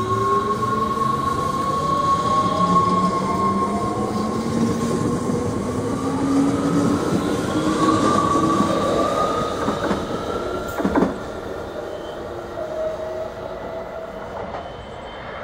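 Sprinter Light Train electric multiple unit accelerating away, its traction motors whining in several tones that rise in pitch, over the rumble of the wheels on the rails. A sharp knock comes about eleven seconds in, then the sound fades as the train draws away.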